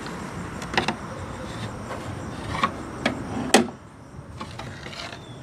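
Several clicks and knocks of car parts being handled, the loudest a sharp knock about three and a half seconds in, after which the steady background noise drops away.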